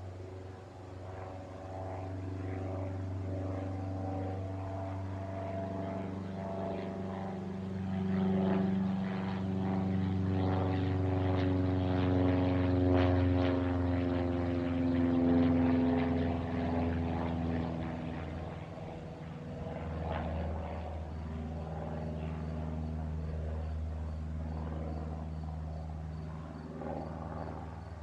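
Cessna 172 Skyhawk single-engine propeller plane flying over. Its engine-and-propeller drone swells, is loudest about halfway through, and drops in pitch as the plane passes overhead, then eases off.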